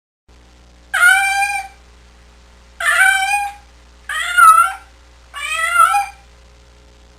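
Domestic cat meowing four times, each meow about two-thirds of a second long, over a faint steady hum.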